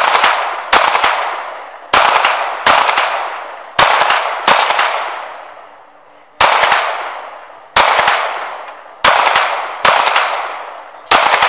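Target shooting: about a dozen gunshots, several in quick pairs less than a second apart, each with a long echoing tail.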